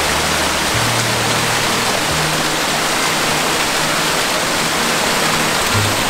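Mountain stream rushing over rocks and a small cascade, a steady hiss of water. Low held notes of background music sit underneath, changing every second or two.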